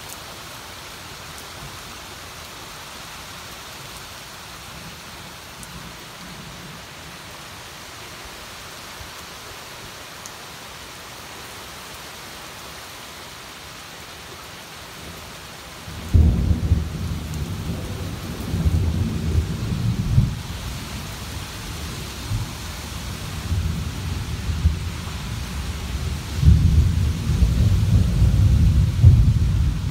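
Steady rain falling on garden foliage and wet stone. About halfway through, a loud low rumble of thunder breaks in suddenly and rolls on, swelling again near the end.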